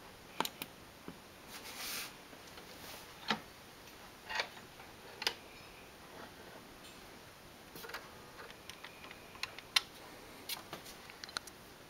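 Irregular sharp clicks, knocks and a few short rustles from handling a turntable stereo: a control knob turned, the hinged dust cover raised and the tonearm moved. A faint steady hiss lies under them.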